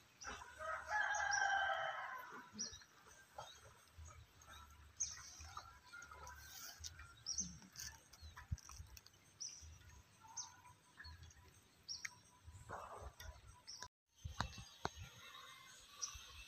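A rooster crows once, about half a second in, for under two seconds. Faint, scattered bird chirps follow.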